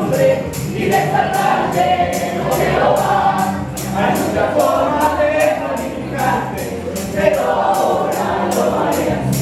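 Spanish-language Christian praise music: voices singing together over a band with a steady beat of about three strokes a second, with a tambourine.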